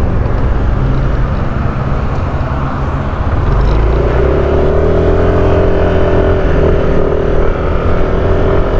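Yamaha scooter pulling away and riding along a road: engine running under heavy wind rumble on the microphone, with a steady pitched drone joining about three and a half seconds in.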